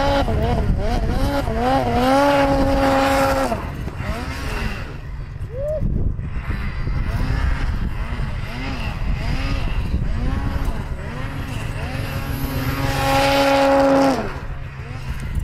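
Snowmobile engine revving up and down in quick rises and falls, twice holding a steady high pitch for a second or so before the throttle is let off, over a constant low rumble.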